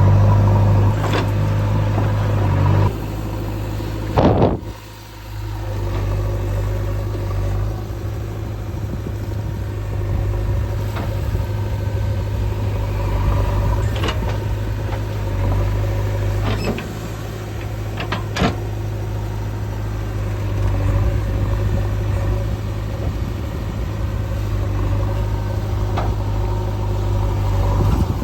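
Diesel engine of heavy machinery running steadily, with a few sharp knocks over it. The level dips briefly about four seconds in.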